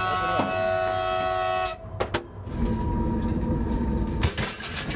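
Freight locomotive's air horn sounding one blast of several tones together, nearly two seconds long, cut off sharply. Then the train rolls on with a low rumble and a few sharp knocks.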